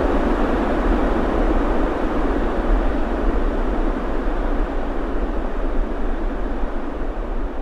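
Wind sound effect: a steady rushing of wind with a deep low rumble underneath, slowly easing off in level.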